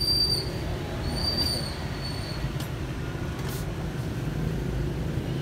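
Metal-on-metal squeal from a wheelchair's leg rest being fitted into its chrome frame socket: a high squeal at the start and again about a second in, then two light clicks.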